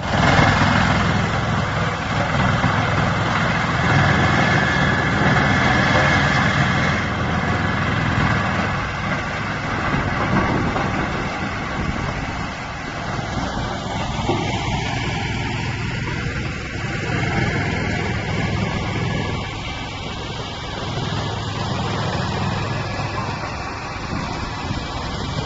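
Wood chipper running with a steady, loud drone and rough noise. A high whine in the first several seconds stops about seven seconds in.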